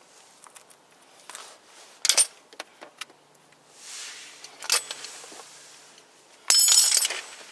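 Metal hand tools clinking and rattling: a sharp clank about two seconds in, a lighter clink near five seconds, and a longer jangling rattle near the end.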